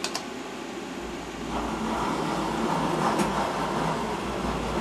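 Fadal vertical machining center's Z axis jogging the spindle head upward, its servo drive and ball screw running with a steady hum that starts about a second in. Two sharp clicks at the very start.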